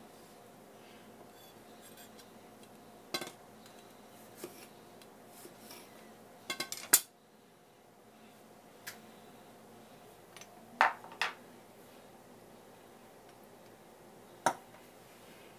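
Tableware being handled and set down on a wooden counter: scattered sharp clicks and knocks of ceramic dishes, the loudest just before halfway, a quick pair about two-thirds through and a last one near the end, over a faint steady hum.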